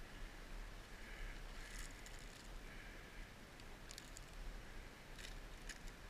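Faint rustling of leafy undergrowth and leaf litter, with a few short sharp clicks or snaps, over a faint high hiss that comes and goes.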